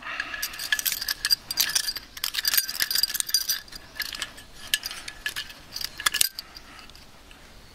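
Light metallic clicks and clinks of a Primus 2243 compact gas stove burner being handled, its folding pot-support arms swung out and snapped into place. The clicking stops about six seconds in.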